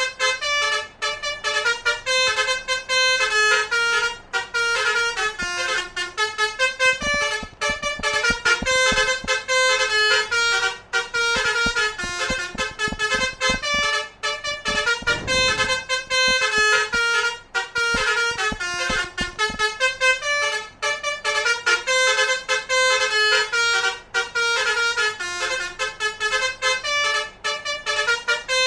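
Indonesian 'telolet' multi-tone musical bus horn (basuri horn) playing a quick stepping melody over and over, the notes changing several times a second. A low noise runs underneath for several seconds in the middle.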